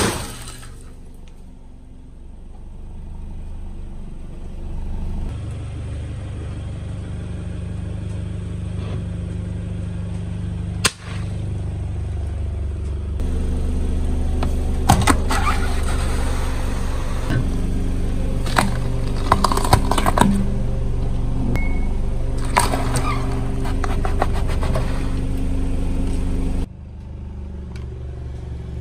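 Car engine running slowly and steadily, with clusters of sharp cracks and crunches about halfway through as the tyre crushes brittle objects.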